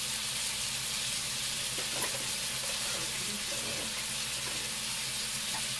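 Marinated beef skewers sizzling steadily in a nonstick frying pan, with one sharp click about two seconds in.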